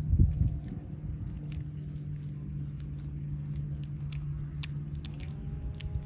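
Hands squishing and pressing a moist herb stuffing into a raw fish's belly: soft wet squelches and small ticks, heaviest in the first second, over a steady low hum.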